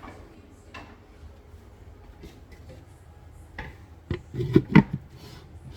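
Kitchen handling sounds: a few faint clicks, then a quick cluster of four or five louder knocks a little after four seconds in, like utensils or cookware being handled.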